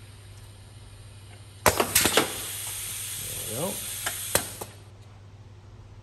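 Pneumatic valves on a coaxial cartridge filling machine click and compressed air hisses out for about three seconds as the air cylinders release after a fill. A short rising squeak comes partway through, and a sharp click comes just before the hiss cuts off.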